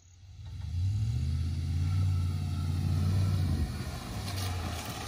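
Ram 1500 pickup's engine pulling up a sandy incline in four-wheel drive high, a deep drone that builds about a second in and eases off about three and a half seconds in as the truck comes over the top.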